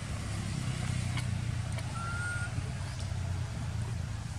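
A baby long-tailed macaque gives one thin, whistle-like cry that rises slightly, lasting about half a second, about two seconds in. A steady low rumble runs underneath.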